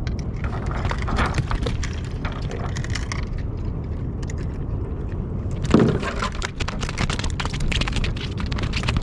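Handling noise as a small halibut is brought aboard a kayak on the line: scattered clicks and clatter over a low steady rumble, with one louder thump about six seconds in.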